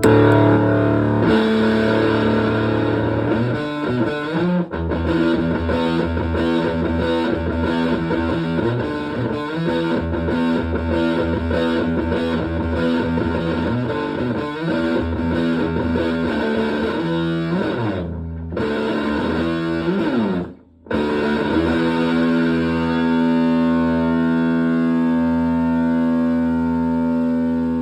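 Epiphone Les Paul electric guitar played through a Tone Bender MKII germanium fuzz pedal (Mullard OC81D transistors) into a Fender Twin Reverb–style amp. It plays fuzzy riffs with some sliding notes, breaks off briefly about three quarters of the way through, then holds one long chord.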